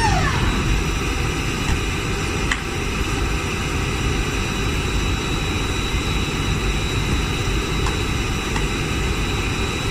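The whine of a single-aisle Airbus narrowbody's hydraulic power transfer unit (the 'barking dog') falls in pitch and dies away in the first moment. After that the parked airliner's systems run on as a steady low rumble with a thin, steady high whine.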